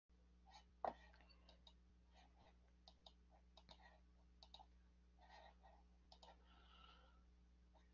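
Near silence: a low steady hum with scattered faint clicks, one sharper click about a second in.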